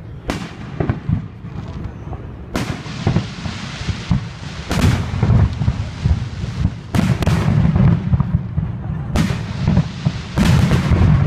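Aerial fireworks shells bursting: a series of sharp booms, some in quick pairs, with a low rumble of echoes and crackle between them.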